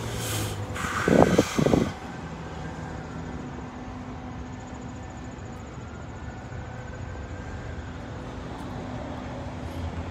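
A car passing close by on wet pavement, its tyres hissing for the first two seconds, with two short loud bumps about a second in; then a steady background hum of street traffic.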